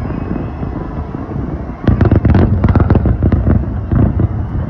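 Aerial fireworks going off in a mass display: a steady low rumble of bursts, then from about two seconds in a dense, rapid volley of bangs, the loudest part, thinning out near the end.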